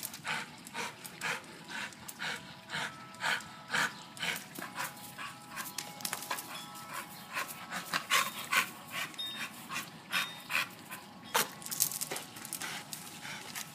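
A dog breathing hard in quick, irregular breaths while it hangs with its jaws clamped on a rope tree swing.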